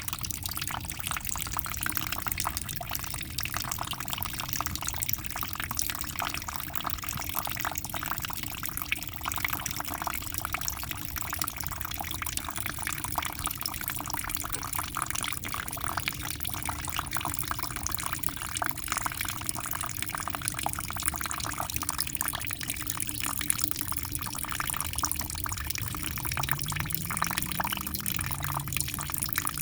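Aquarium water splashing and bubbling steadily, a dense crackle of small drips and bursting bubbles.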